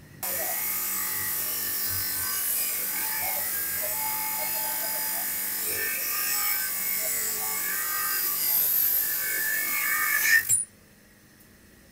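A power tool's motor runs steadily with a whir and a bright hiss, then cuts off suddenly about ten and a half seconds in.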